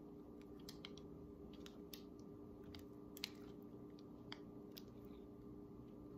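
Faint, scattered soft clicks and scrapes of a silicone spatula working thick banana bread batter out of a bowl into a metal loaf pan, over a quiet steady hum.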